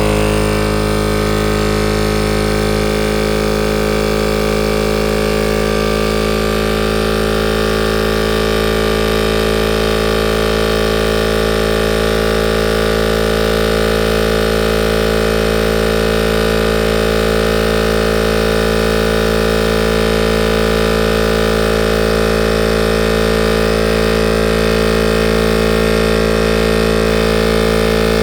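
Vevor 12-volt onboard air compressor running continuously with a steady, even hum. It is stalled at about 140 psi and keeps running because it never reaches its 150 psi cut-off pressure.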